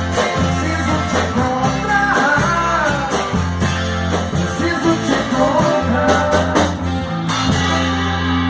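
Instrumental passage of a band song: a lead guitar melody with bent notes over bass and a steady drum beat, the cymbals dropping out near the end.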